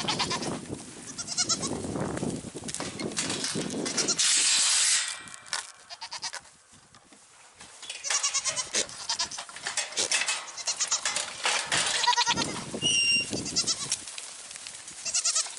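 Goats bleating repeatedly and excitedly, with a loud burst of noise about four seconds in.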